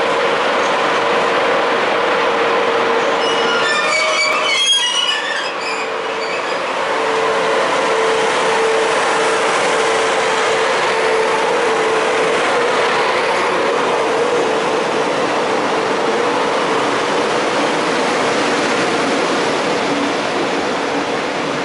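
A regional train hauled by DB Class 111 electric locomotives pulls away with its brakes still dragging, because they were released too late. Brakes and wheels squeal over the running noise, with a steady tone throughout and a burst of shrill higher squeals about four seconds in.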